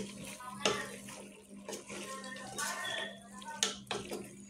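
Wooden spatula stirring chunks of chicken, potato and vegetables in a moist masala in a pot: a wet, irregular stirring sound with a few sharp scrapes against the pot.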